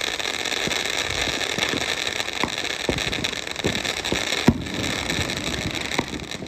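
Ground fountain firework spraying sparks with a steady hiss, dotted with small crackles and pops, one sharper pop about four and a half seconds in.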